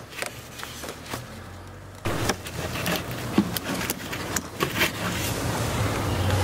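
Light clicks and rubbing of hands working a small rubber hose off its plastic fitting on a car engine, over a faint low hum. About two seconds in the sound turns louder and denser, with a steady low hum and scattered clicks.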